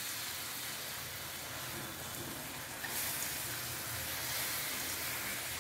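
Banana pieces sizzling steadily in ghee and jaggery syrup in a small pan, the syrup cooking down to a thick coating on the fruit.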